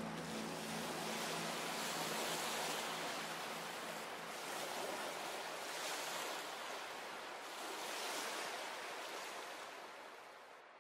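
Ocean surf washing onto a beach, a steady rush that swells and eases every few seconds, with the last notes of music dying away at the start; the surf fades out near the end.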